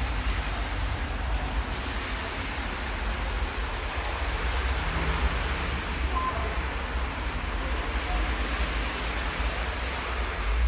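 Hitachi Urban Ace HF machine-room-less traction elevator car in travel: a steady rushing ride noise with a low rumble, and a low bump near the end.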